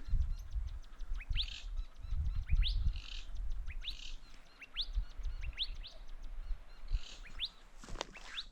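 Small birds chirping: many short, quickly rising chirps repeated every half second or so, over a low rumble.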